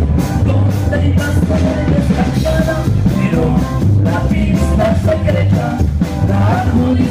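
Live band playing an instrumental passage of a norteño-style corrido, loud, with a steady drum-kit beat and bass under short melodic lead notes.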